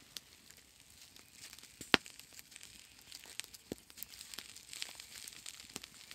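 Wood campfire crackling with scattered small pops and one sharp crack about two seconds in.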